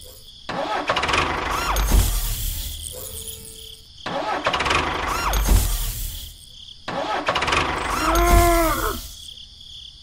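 Tractor engine sound effect cranking and revving in three bursts of about three seconds each, with short dips between them, as the stuck tractor tries to pull out. About eight seconds in there is a short voice-like cry that rises and falls.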